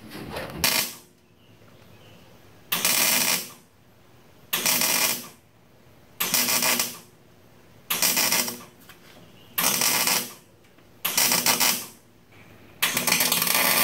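Welding arc on thin sheet-metal floor pan and kick panel seams, struck in short bursts of under a second each, seven in all, about one every second and a half to two seconds. This is sheet metal welded as a spot weld over and over rather than one continuous bead.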